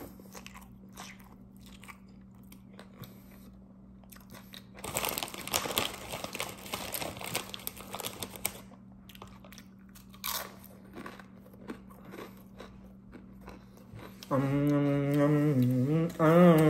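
Close-up sounds of someone biting and chewing a fish sandwich (a fish torta), with a stretch of loud crunching from about five to eight and a half seconds in. Near the end come two long closed-mouth 'mmm' hums, the loudest sounds here.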